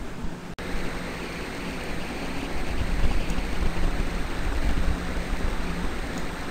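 Steady rushing background noise with a low hum, picked up by an open microphone, with a brief dropout about half a second in.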